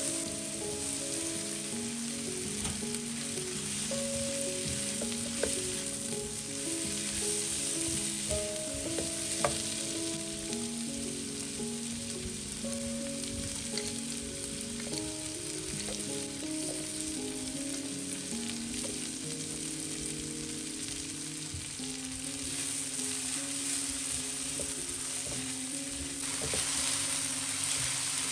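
Chillies, shallots, garlic and long beans sizzling in oil in a granite-coated wok, stirred with a silicone spatula, with a few light clicks of the spatula on the pan. The sizzle grows louder near the end, and a soft tune plays underneath.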